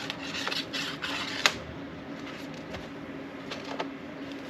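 Small screws and metal parts of a motorcycle fuel petcock being handled on a workbench: a few light clicks and taps, with a sharper click about one and a half seconds in, over a faint steady hum.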